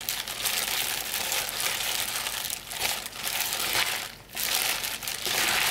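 Plastic-gloved hands tossing seasoned spring cabbage and wild chives in a stainless steel bowl: the gloves crinkle and the leaves rustle, with a brief pause about four seconds in.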